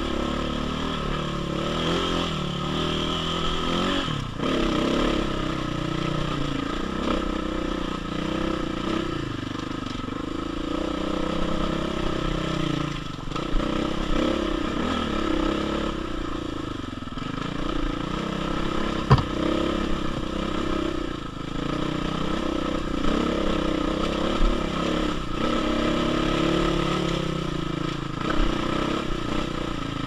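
KTM 500 dirt bike's single-cylinder four-stroke engine pulling hard on a loose, rocky climb, its pitch rising and falling with the throttle. One sharp knock about two-thirds of the way through.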